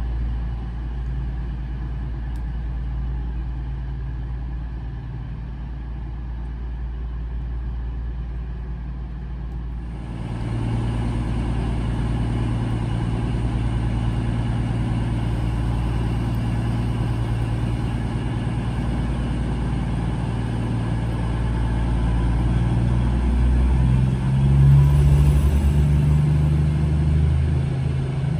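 Underfloor diesel engines of a Class 222 Meridian multiple unit idling as a steady low hum, which gets louder about a third of the way in. Late on, the engine notes rise in pitch and level as the train powers away from the platform.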